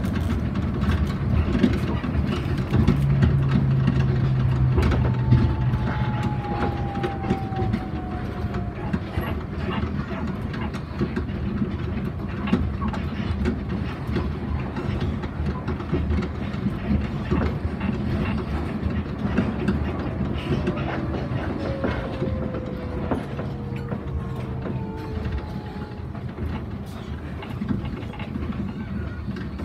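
Yamaman Yukarigaoka Line rubber-tyred people-mover car running along its concrete guideway, heard from the driver's cab: a steady rolling rumble with clicks over the guideway joints. A motor whine slides down in pitch twice, and the running noise eases off as the car nears a station.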